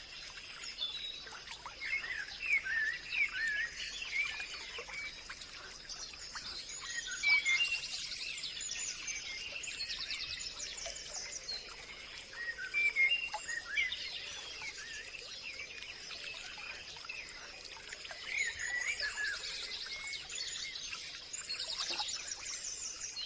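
Several birds chirping and singing, with short whistled slurs and quick trills, over a steady high-pitched tone.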